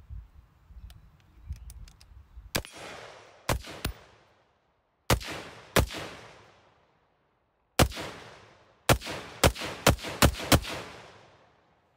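AR-15 in 5.56 fired through an Armaspec Rifter linear muzzle brake with its blast shield fitted: about ten sharp shots in uneven quick strings, starting a couple of seconds in. Each shot trails off in a fading echo.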